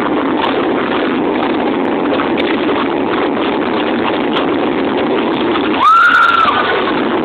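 Loud dance music from a PA system, heard distorted and muddy. About six seconds in, a whistle-like tone slides up, holds briefly, and falls.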